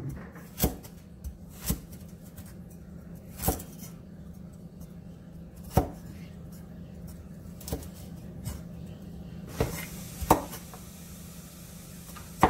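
Cleaver-style kitchen knife chopping carrots on a wooden cutting board: about ten single sharp knocks of the blade on the wood, unevenly spaced.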